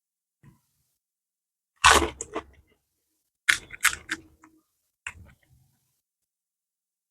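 Crisp fuchka (pani puri) shells crunching and cracking, in three short bursts about two, three and a half, and five seconds in.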